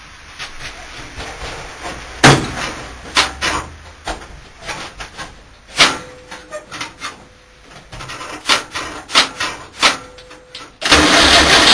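Scattered sharp knocks, clicks and rubbing of handling while the engine is off. About eleven seconds in, the Volkswagen Type 2 bus's 1600cc air-cooled flat-four engine starts and runs loudly.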